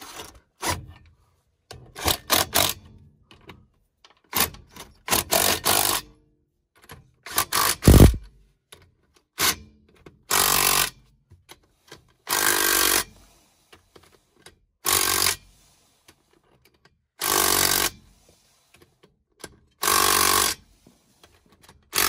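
An impact wrench run in short bursts of about a second, five times about two and a half seconds apart, tightening the lug nuts on a mobile home wheel. Before the bursts come scattered metal clanks and knocks, and one heavy thud about eight seconds in.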